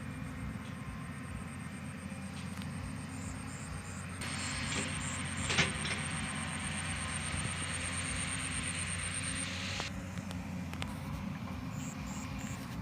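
Excavator's diesel engine running, a steady low rumble, with a hiss joining in from about four seconds in until about ten seconds.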